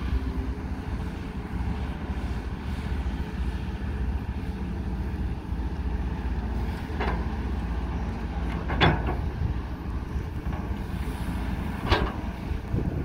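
Crawler excavator's diesel engine running in a steady low rumble, with wind on the microphone. Three sharp knocks come in the second half, about two and three seconds apart, as the bucket digs and loads the dump truck.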